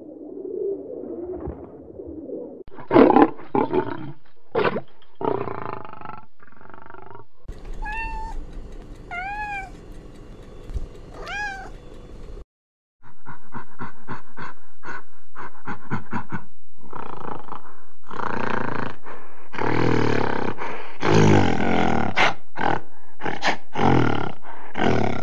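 A collared dove cooing low and softly, then a domestic cat meowing about four times, then a gorilla: a run of short sharp pops followed by loud, harsh calls, the loudest part.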